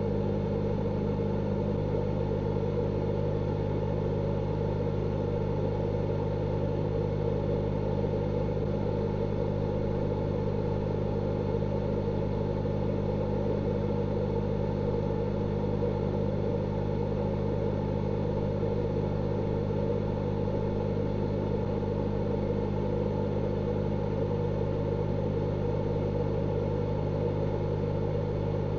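Steady low mechanical hum, several constant tones with no change in pitch or level.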